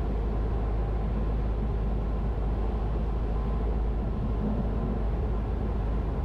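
Steady drone of a Cessna 172's piston engine and propeller in flight, heard inside the cabin.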